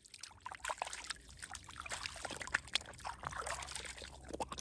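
A hand swishing in shallow water at the shore: a run of small, irregular splashes and trickles.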